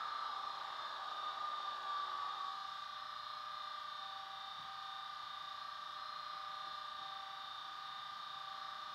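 Class 20 diesel engine sound played by a model locomotive's DCC sound decoder through its small speaker, idling steadily while the model stands still. The engine note settles slightly lower and quieter over the first few seconds, then holds a steady hum.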